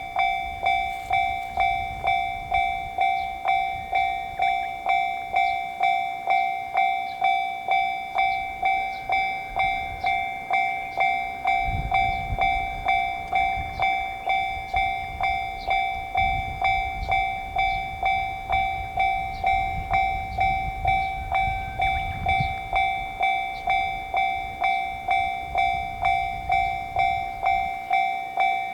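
Japanese railroad crossing alarm ringing its electronic 'kan-kan' bell in a steady, even rhythm of a little under two strokes a second. A low rumble of a passing train rises and falls through the middle.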